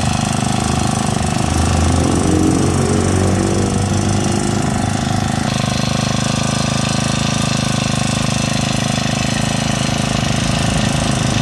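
Small four-stroke engine of a Yamakoyo BG435 brush cutter running steadily at idle.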